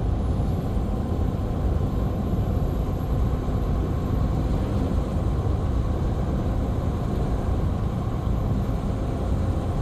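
Semi truck's diesel engine and tyre noise heard from inside the cab while driving at a steady road speed: an even low rumble with no change.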